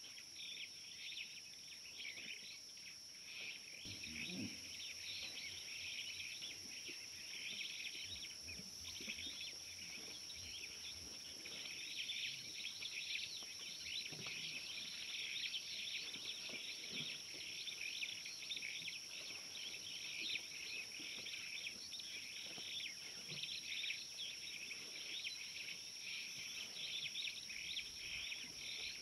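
Bush ambience: a dense, continuous chorus of insects and chirping birds, with a steady high-pitched whine above it.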